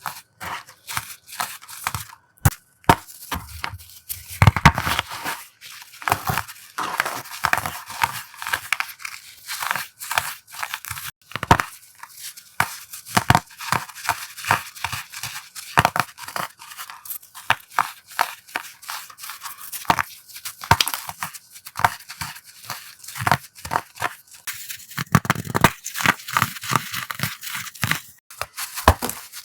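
Dried powder blocks being crushed by hand close to the microphone: a dense run of crisp, crackly crunches and snaps with a slight squeak, with heavier crunches about four seconds in and again near the end.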